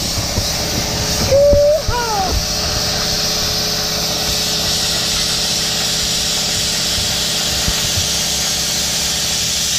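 Hypertherm Powermax 30 XP plasma cutter cutting the truck body, a loud steady hiss of the air and arc. About a second and a half in, a short pitched whoop rises, then falls.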